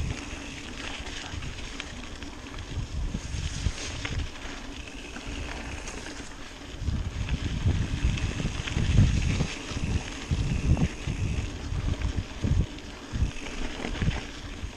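Mountain bike rolling along a singletrack trail, with wind buffeting the camera's microphone; the rumbling gusts grow heavier from about seven seconds in.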